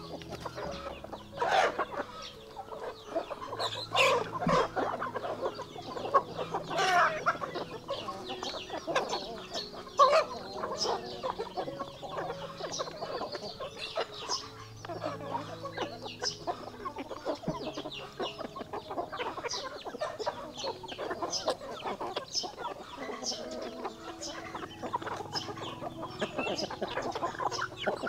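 Chickens clucking and calling, many short calls overlapping, with louder calls in the first ten seconds or so.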